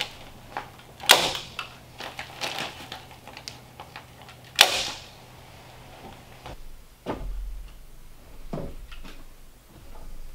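Sharp clicks and knocks of hand work on wooden floor joists while fiberglass insulation batts are fitted, the two loudest about a second in and a few seconds later. In the second half come dull thuds of boots stepping across the joists.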